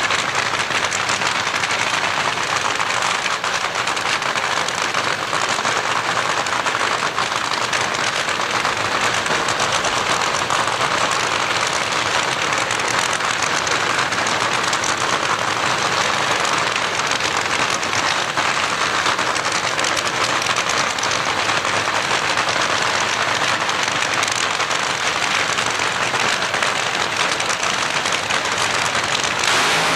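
Drag-racing engine running steadily, a loud, dense crackle with no clear pitch that holds without a break.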